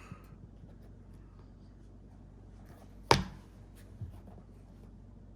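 Plastic disc golf discs being handled, with one sharp clack about three seconds in and a softer knock a second later, over quiet room tone.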